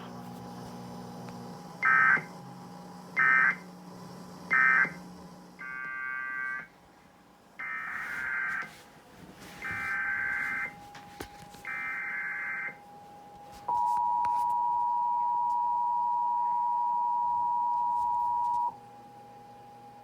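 NOAA Weather Radio Emergency Alert System tones between two tornado warnings. First come three short, loud bursts of warbling digital data (the SAME end-of-message code closing the previous warning), then four longer data bursts (the header for the next warning). Then a steady 1050 Hz warning alarm tone is held for about five seconds and cuts off.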